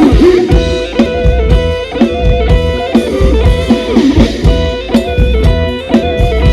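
A live band plays an instrumental passage of Thai ramwong dance music, with an electric guitar carrying the melody over a steady beat of bass and drum kit.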